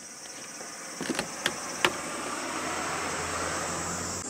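A solar cooker's hinged lid and latch being handled: four sharp clicks between about one and two seconds in, over a steady high-pitched hiss and a low hum.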